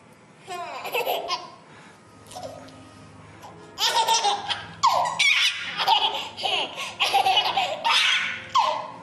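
Baby laughing hysterically: a short burst about half a second in, then a long run of repeated bouts of laughter from about four seconds in.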